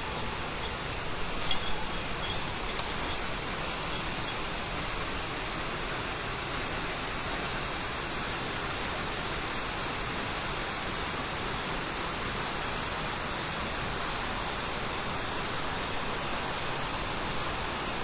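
Large waterfall rushing steadily, with a few sharp clicks about a second and a half in.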